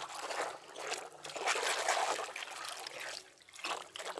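Muddy water sloshing and splashing in a plastic basin as a hand swishes and scrubs a toy truck under the surface. It is loudest around the middle and dies down briefly near the end.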